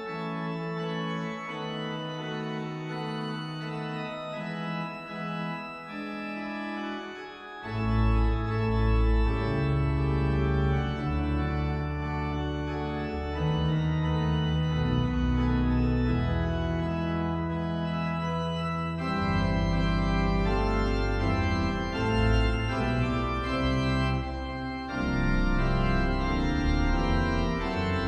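Organ playing sustained chords. About eight seconds in, deep bass pedal notes come in and the music gets louder, with the chords changing every second or two.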